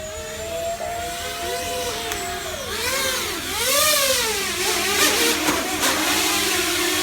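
Electric propeller motors of a multirotor RC Millennium Falcon model running, their whine steady at first and then swooping up and down in pitch several times as the throttle changes. It gets louder about halfway through.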